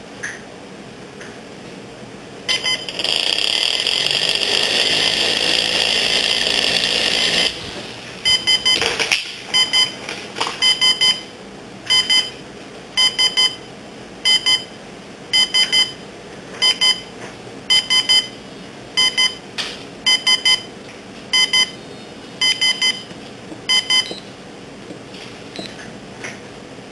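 Helicopter alarm clock: the toy helicopter's small electric rotor motor whirs steadily for about five seconds. Then the clock's electronic alarm beeps in quick clusters, about one cluster a second, and stops a few seconds before the end.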